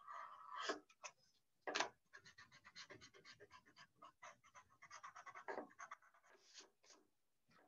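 Faint pencil scratching on sketchbook paper in quick short strokes, about seven a second, with one louder stroke just under two seconds in.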